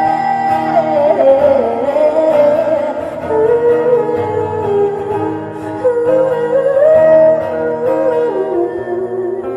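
Live worship band music: a wordless lead melody glides and bends over sustained guitar and keyboard chords between sung lines.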